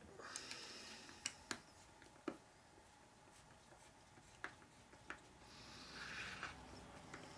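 A hex driver turning a small screw into an RC buggy's gearbox housing. There are about five faint sharp clicks and two short scratchy rasps, one near the start and one about six seconds in.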